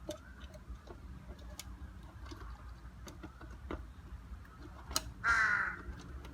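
A crow caws once, about five seconds in, a single call of about half a second. Faint scattered clicks come before it.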